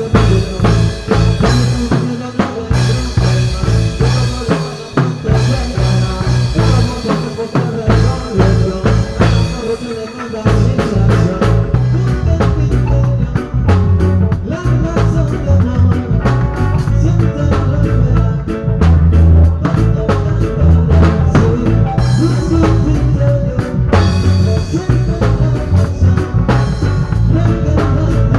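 Live band playing a reggae-style song, with a steady bass line and drum kit. About ten seconds in, the drums become busier, with rapid, dense strokes.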